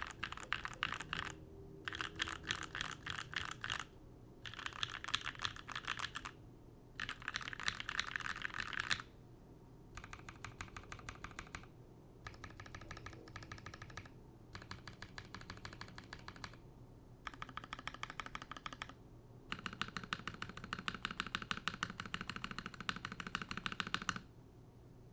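Keycult No. 1 TKL mechanical keyboard with NovelKeys Cream linear switches: one key at a time pressed rapidly over and over, in about nine runs of quick clicks a few seconds each with short pauses between. The middle runs are quieter, and the last, longest run has a deeper tone.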